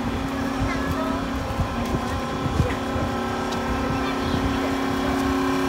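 A D51 steam locomotive standing at the platform, giving off a steady hum of several held tones over a faint hiss. The sound grows a little louder near the end. Scattered light knocks and platform chatter are heard too.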